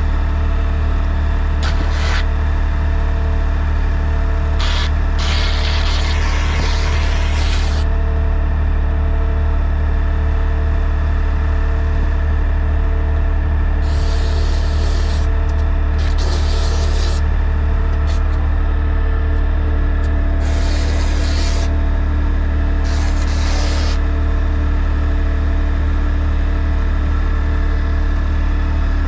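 Septic pumping truck's engine and vacuum pump running steadily, pumping grease out of a sewer pit, with a short hiss every few seconds at first, a longer one about five to eight seconds in, and several more later on.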